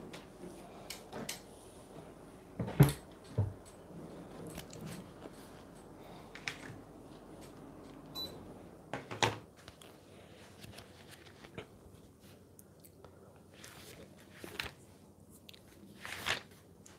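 Scattered knocks, clicks and rustles of a person moving about and handling a book and a marker, the loudest a thump about three seconds in. A faint short electronic beep sounds about eight seconds in, as a handheld remote is pointed.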